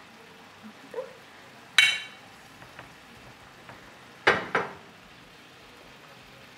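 A metal spoon and fork clinking against the frying pan and a ceramic plate as pieces of pork fillet are lifted out, over a faint sizzle from the steaming pan. A sharp ringing clink about two seconds in, and two quick knocks a little after four seconds.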